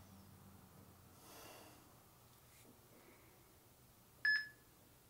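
Workout interval timer giving one short, high electronic beep near the end, the first of a once-a-second countdown to the end of the stretch interval.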